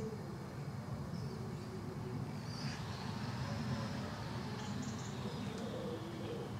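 Outdoor ambience: a steady low rumble with a few short, high bird chirps, one about two and a half seconds in and a quick cluster about five seconds in.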